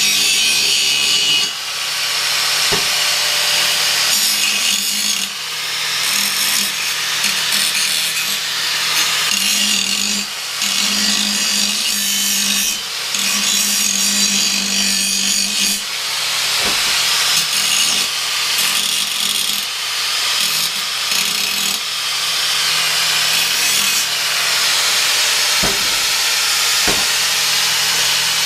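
Angle grinder running and grinding steel, a steady motor hum under a loud grinding rasp. The grind dips briefly every few seconds as the disc eases off the metal.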